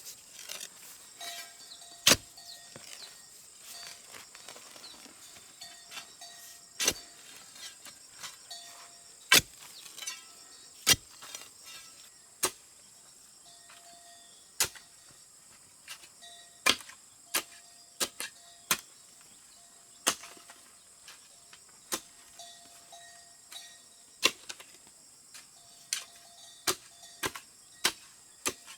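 A series of sharp knocks at an uneven pace, roughly one every second or two, over a steady high insect drone.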